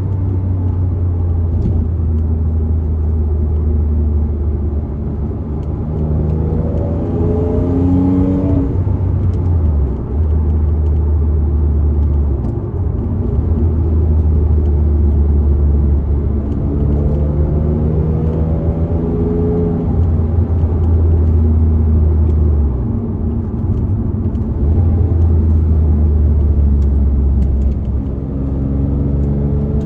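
Turbocharged Porsche Cayman S flat-six engine driving under load. It pulls up through the revs several times, with short dips between the pulls. It is running on a newly fitted OEM drive belt and being tested for a recurring misfire.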